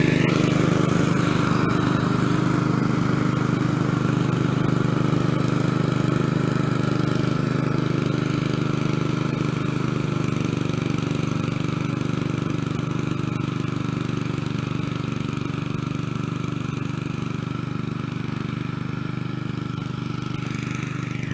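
Snapper rear-engine riding mower's 8 hp engine running steadily while mowing, slowly growing fainter as the mower drives away.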